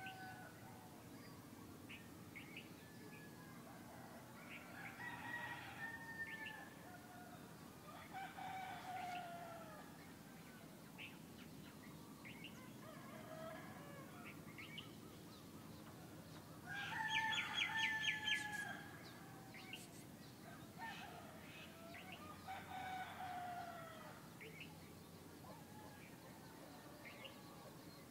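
Birds calling: a series of separate pitched calls, each a second or two long and mostly falling in pitch. The loudest comes about two-thirds of the way in, with a quick stutter of clucks.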